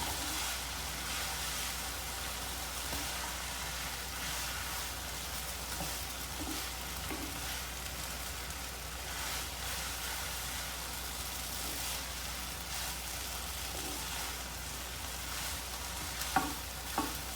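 Noodles frying in a pan with soy sauce, sizzling steadily as they are stirred. Two sharp knocks come near the end.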